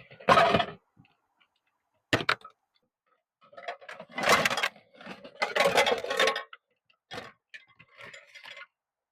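Clicks and short bursts of rustling and clattering as gear and food items are handled and set down while a meal is being got ready, with a sharp click about two seconds in.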